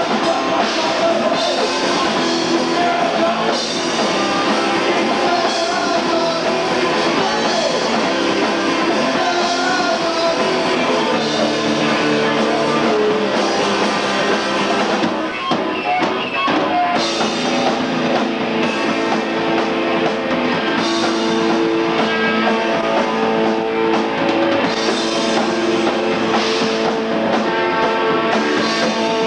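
Hardcore band playing live: electric guitars and a drum kit, loud and continuous. It is heard through a camcorder's built-in microphone on VHS-C tape.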